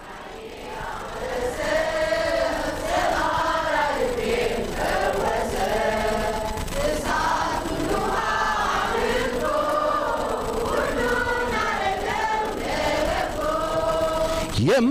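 A congregation singing an Amharic hymn together, many voices carrying a slow tune that rises and falls. The singing swells in over the first two seconds, then holds steady.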